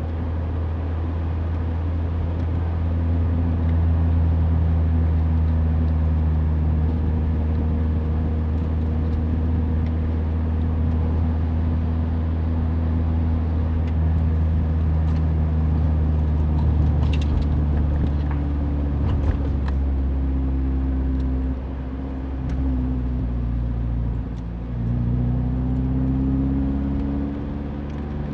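Mazda Roadster engine and road noise heard from inside the car while driving along a country road. It hums steadily, dips briefly twice about three-quarters of the way through, then rises in pitch as the car pulls again. A few faint ticks are heard around the middle.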